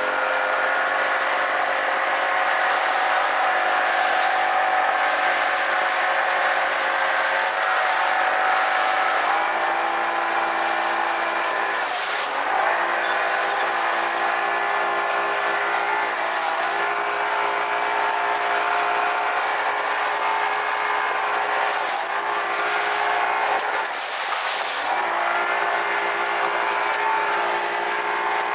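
Yamaha two-stroke outboard motor running at speed under way, with water and wind noise from the hull and wake; its pitch dips and recovers several times, and the owner feels the engine is acting up again.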